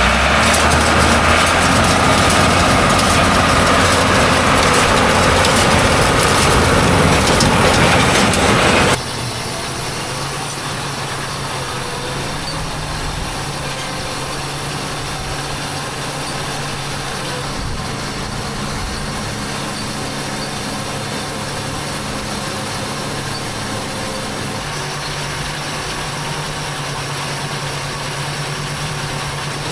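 Tractor and New Holland 664 round baler running in alfalfa. For about the first nine seconds the sound is loud and dense, then it drops abruptly to a quieter, steady engine drone.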